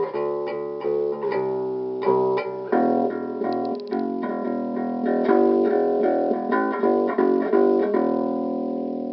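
Electric bass guitar played solo: a run of plucked notes, several a second, each sharp at the start and fading. Near the end the last notes are left to ring out.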